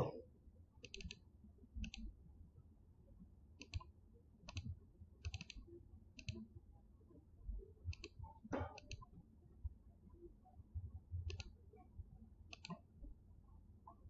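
Faint, scattered clicks of a computer mouse and keyboard, several coming in quick pairs like double-clicks.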